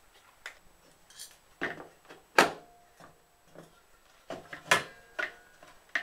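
Scattered knocks and clicks of two microwave-oven magnetrons and a plastic heat gun being handled and pushed together, the loudest about two and a half seconds in.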